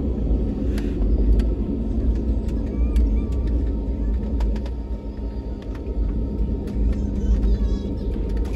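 Airliner cabin noise as an Airbus A320-family jet taxis onto the runway: a steady low rumble from the engines and the wheels rolling, with small clicks and rattles from the cabin.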